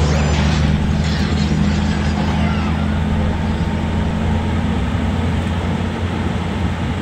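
A vehicle's engine and road noise heard from inside the cabin while driving at a steady speed: a low, even engine hum under tyre and wind hiss.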